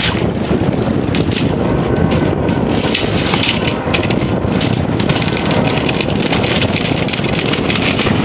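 Wind buffeting the microphone, with the mainsail's loose cloth flapping and rustling as it is hoisted up the mast.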